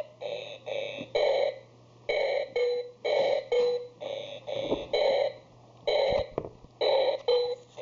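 Circuit-bent toy keyboard playing a string of short, beeping electronic notes, each a fraction of a second long with gaps between them, a few ending in a briefly held steady tone.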